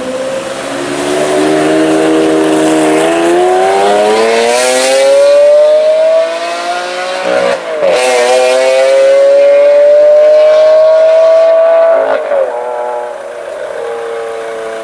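Lamborghini Aventador's V12 through an Armytrix exhaust under hard acceleration, loud, the engine note climbing through the gears. There is a gear change with a brief break about seven and a half seconds in, another climb, and a second upshift near twelve seconds, after which the sound grows quieter as the car pulls away.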